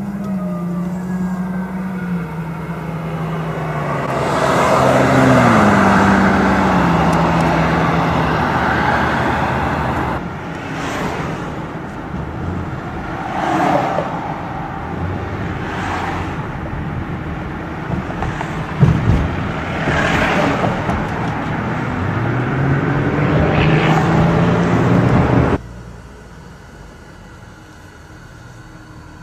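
Engine and exhaust of a Ford Bronco Warthog prototype driving and accelerating, its pitch falling in steps and then rising again as it revs. Later it is heard from a car following close behind, with several surges of power and a rising run of revs near the end.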